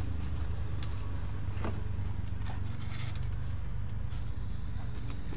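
Light knocks and rustles of plastic cooking-oil bottles being set down on a glass display case lined with oil paper, a handful of them spread over the seconds, over a steady low rumble.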